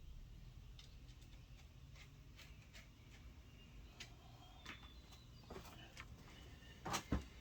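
Faint, scattered clicks and taps of hand tools on engine parts, with two louder knocks near the end, over the steady low hum of a shop fan.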